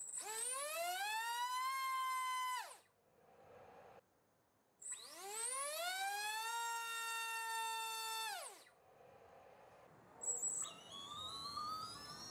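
BrotherHobby T1 1407-4100KV brushless motor spinning a 5-inch two-blade prop on a thrust stand, given two short bursts of throttle: each time the whine rises quickly in pitch, holds for a few seconds and winds down fast. Near the end a brief tone sounds, then the motor, without a prop, starts a slow ramp up in speed, its whine rising steadily in pitch.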